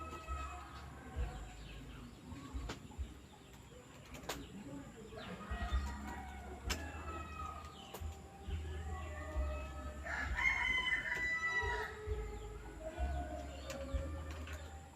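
Chickens clucking, with a longer rooster crow about ten seconds in.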